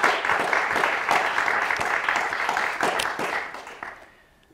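Applause, a dense patter of many hands clapping, dying away about four seconds in.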